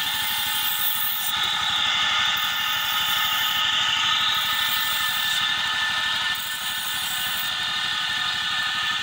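A knife's steel blade ground against a grinding wheel that is belt-driven from the rear wheel of a running Road Prince RP70 motorcycle: a steady hissing, ringing grind over the rapid, even beat of the small single-cylinder engine.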